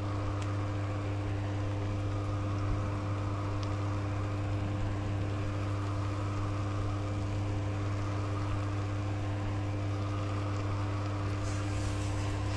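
Small range-hood exhaust fan running steadily: a constant low electric hum over even fan noise.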